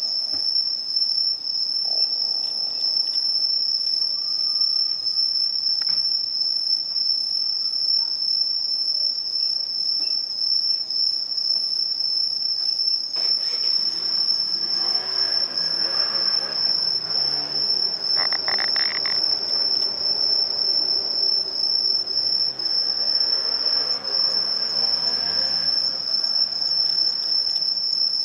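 Crickets trilling in a steady, unbroken, high-pitched chorus. From about halfway through, a low, softer sound of something passing in the distance swells and fades beneath the trill.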